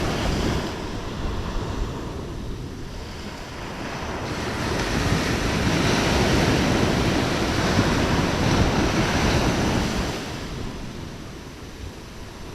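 Sea surf washing onto the shore: one wave swells up from about four seconds in and falls away near ten seconds, with wind buffeting the microphone.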